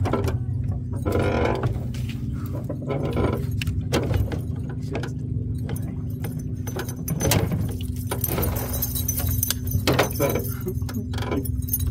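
Fishing reel being cranked in, with repeated clicking and metallic rattling, as a small fish is brought up to the boat. A steady low mechanical hum runs underneath.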